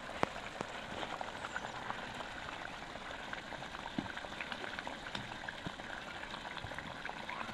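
Thick spinach curry boiling hard in a pan: a steady bubbling with many small scattered pops.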